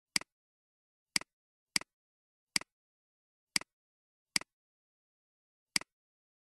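Computer mouse button clicks: seven sharp clicks at uneven gaps, each a quick double tick of press and release, with silence between.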